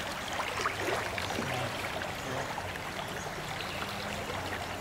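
Shallow creek flowing over riffles, a steady rush of moving water, with a few faint clicks scattered through it.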